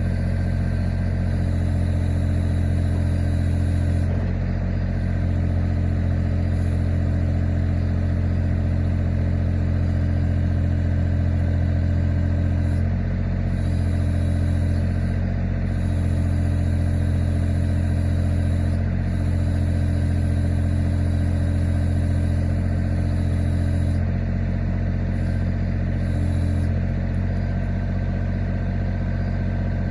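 An engine running steadily at a constant speed, with a strong low hum. Its sound shifts slightly a few times, about 4, 13 and 24 seconds in.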